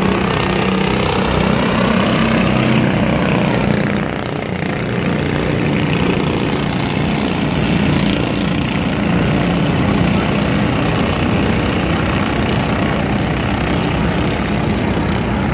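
A pack of junior sprint cars racing on a dirt oval, several small racing engines running together in a steady loud drone that dips slightly about four seconds in.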